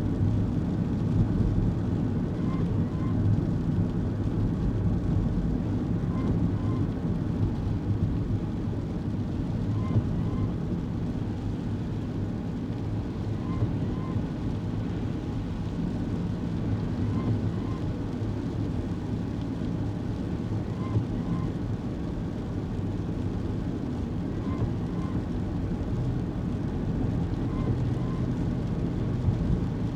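Inside a kei car on the move: a steady low engine and road rumble. A faint double chirp repeats about every three and a half seconds.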